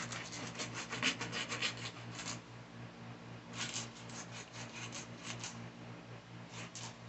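A stiff plastic-bristle brush scrubbing a sneaker with cleaner, in quick back-and-forth strokes of about five a second. The strokes come in three runs, with a pause of about a second after the first and again before a short last run near the end.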